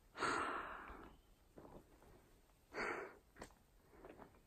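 A person breathing out hard twice, a long breath near the start and a shorter one about three seconds in, winded from climbing a steep trail, with a few faint clicks and rustles between.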